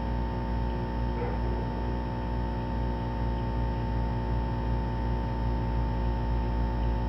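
Steady low mechanical hum with a deep rumble, unchanging throughout.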